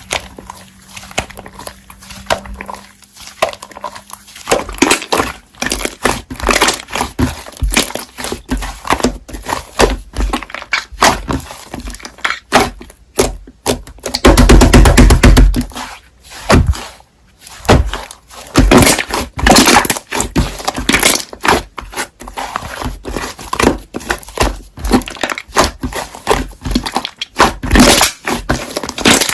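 Slime being squished and stretched by hand, giving a dense run of sticky clicks, pops and crackles, with a louder, heavier squelching stretch about halfway through.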